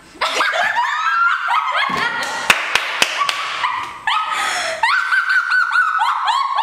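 High-pitched, hysterical laughter in quick rising and falling whoops with some long shrieks, and a few sharp slaps about two to three seconds in.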